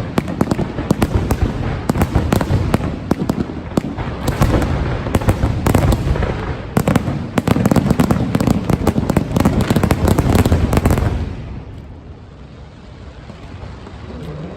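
A dense barrage of fireworks bursts, many sharp bangs and crackles in quick succession. It dies away about eleven seconds in to a quieter, fading rumble, then picks up again near the end.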